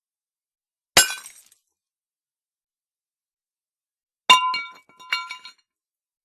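Pottery smashing: one sharp crash about a second in, then a second smash about four seconds in with shards clinking and ringing, followed by another short burst of clinking fragments.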